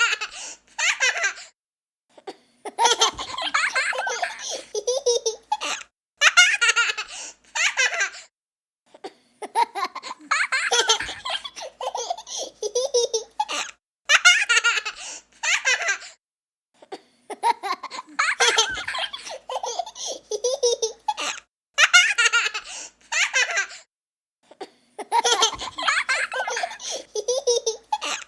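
A young child laughing in repeated bursts of giggling, each one to three seconds long, with short silent gaps between them.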